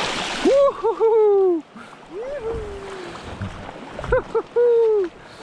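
A short splash as a released Chinook salmon kicks away through the shallows. It is followed by three loud, drawn-out calls, each rising sharply and then sliding slowly down.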